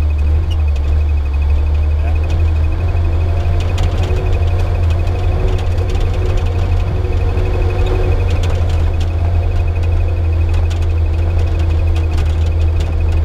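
Suzuki Jimny Katana's F10A four-cylinder engine, breathing through a 4-into-1 header exhaust, running steadily as the vehicle drives along a muddy track, heard as an even low rumble with scattered faint clicks.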